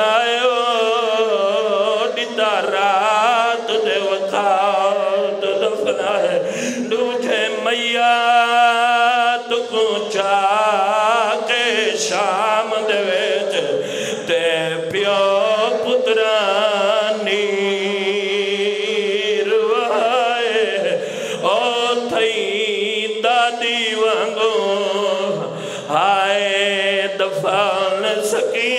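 A man chanting devotional verse into a microphone in long, wavering sung lines, broken by short pauses for breath.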